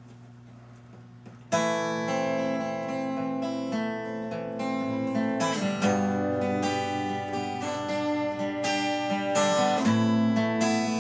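Acoustic guitar strummed, coming in suddenly about one and a half seconds in after a faint low hum, on a guitar missing a string.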